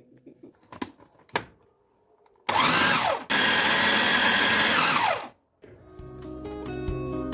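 Electric food chopper's motor mincing beef: a short pulse, then a run of about two seconds, spinning up to a steady high whine and winding down at the end. A few faint clicks come before it.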